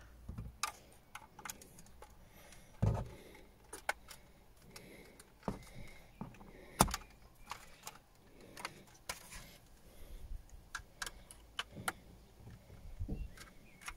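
Irregular plastic clicks, taps and rattles as a stuck clip on a BMW F30 overhead dome light unit is pried loose with a screwdriver and its wiring connectors are handled. The sharpest knocks come about 3 and 7 seconds in.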